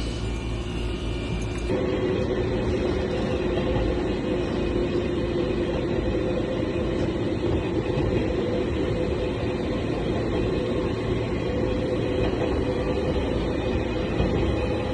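Electric Eizan Railway train running, a steady rumble with an even motor hum heard inside the carriage.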